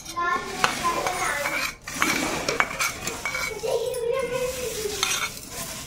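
Wooden spatula stirring dry roasted poha chivda in a large steel pot, mixing in the mustard-and-cumin tempering: a rustling scrape of flakes against the metal, with a few sharp clicks.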